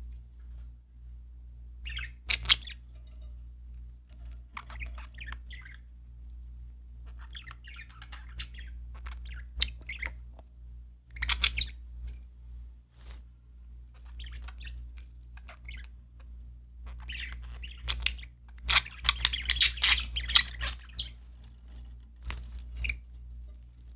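Budgerigars chirping and warbling in short scattered bursts with pauses between, the busiest and loudest stretch coming about three-quarters of the way through, over a low steady hum.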